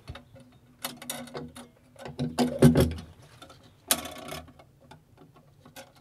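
Fire extinguisher being set back into its bracket on the bus: metal clicks, knocks and rattles, loudest about two and a half seconds in, then a sharp click of the clamp about four seconds in.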